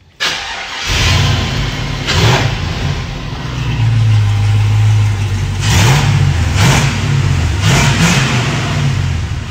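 A box Chevy's engine comes to life with a sudden burst and runs, with the throttle blipped about four times so the pitch rises and falls. This is likely the engine running once its lack of fuel pressure was fixed.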